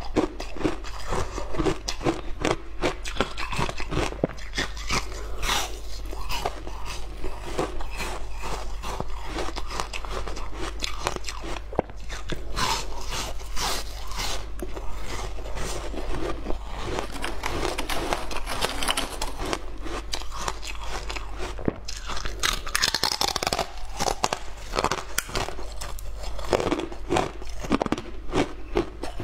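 Chunks of coloured frozen ice being bitten and chewed: a dense, continuous run of crisp cracks and crunches.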